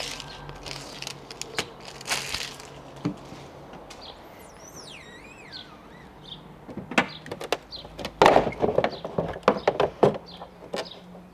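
Plastic clicks and knocks as the rear roof spoiler of a Ford Fiesta ST mk8 is worked loose from its clips on the tailgate, a few early on and a dense cluster near the end. A bird gives a few falling chirps midway.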